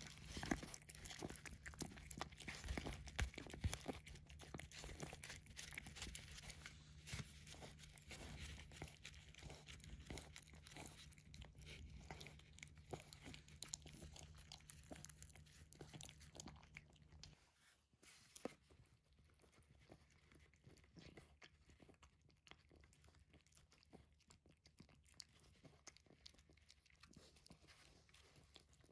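A cat eating soft canned therapeutic-diet food off a paper plate: faint, quick wet chewing and lapping clicks, quieter in the second half.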